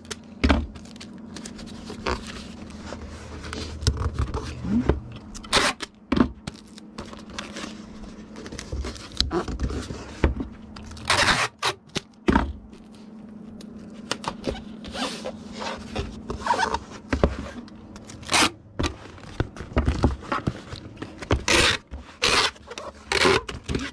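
Hands packing an item into a shipping package: cardboard and wrapping scraping and rustling, with scattered clicks and taps and several short, sharp rasps like tape being pulled, the strongest near the middle and toward the end.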